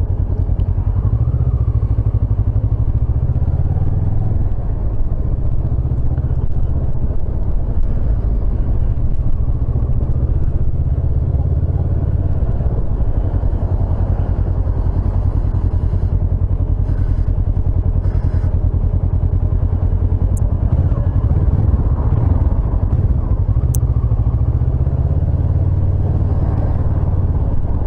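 Motorcycle engine running at low speed in town traffic, with heavy wind rumble on the microphone.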